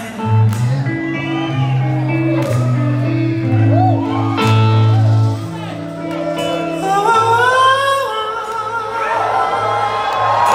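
Live blues-rock band playing loud, with electric guitars, a bass line moving in long held notes and singing, heard from the audience in a large hall.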